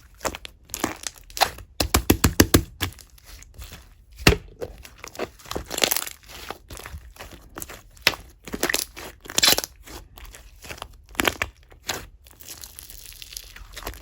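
Clear slime topped with fruit charms being squished and pressed by hand, giving irregular clicks and pops, with a quick run of them about two seconds in.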